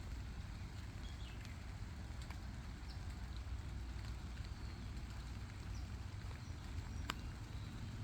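Rain falling on a hay field: a steady hiss of rain with scattered drop ticks, over a steady low rumble. One sharper tap about seven seconds in.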